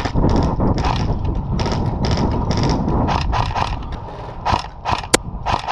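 Tokyo Marui Recoil AK74MN airsoft electric gun firing several short bursts, its gearbox and recoil mechanism clattering. Two single sharp cracks come near the end.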